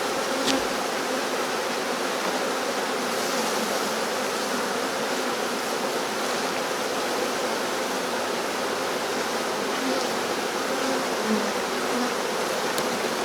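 Honeybee swarm buzzing steadily: the hum of many bees in flight around the disturbed cluster.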